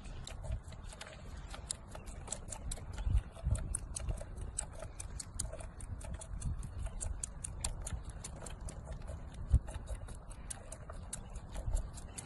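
Baby goat sucking at a bottle nipple: a fast, even run of small clicks, about five a second, with irregular low thumps and one louder thump near the end.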